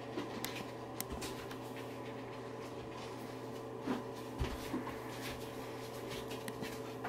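Children brushing their teeth with manual toothbrushes at a bathroom sink: scattered light taps and clicks, with a dull thump about four and a half seconds in, over a steady low hum.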